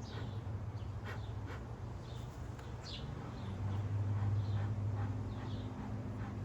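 Honeybees humming around an open hive, a steady low drone that swells about halfway through, with a few short bird chirps over it.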